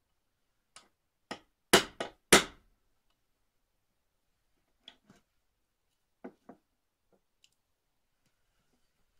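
A small hammer striking a metal pin punch in sharp, separate taps. The two hardest blows land about two seconds in, lighter pairs of taps follow near the middle, and a faint one comes later.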